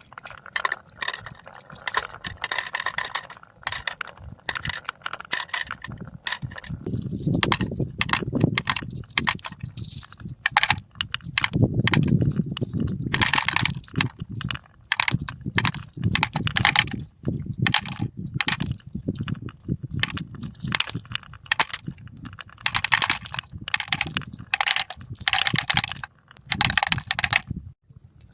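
Marbles rolling and clattering down marble run tracks: dense rapid clicks and clacks, with a low rolling rumble in places.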